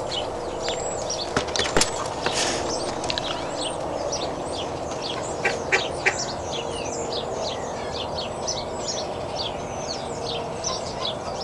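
Small birds chirping in a dense, continuous scatter of short high calls over a steady background hum. There are a few sharp knocks, about two seconds in and again around five and a half to six seconds in.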